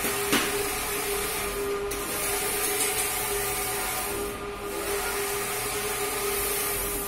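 Large-format inkjet printer printing a flex banner: a steady mechanical hum and hiss with a constant whine as the print-head carriage sweeps back and forth across the media. The hiss dips every few seconds, and there is a single sharp click about half a second in.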